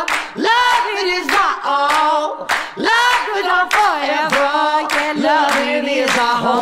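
Music from the soundtrack song: voices singing long, wavering notes together over handclaps, with no bass or drums.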